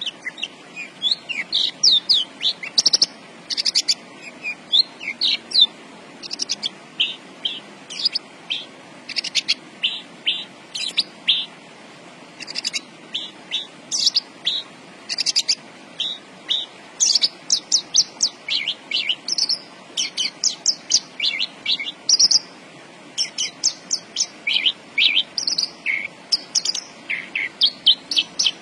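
Javan bush lark (branjangan) in full song: a fast, unbroken run of short chirps and whistled notes, many sweeping up or down, with only brief pauses.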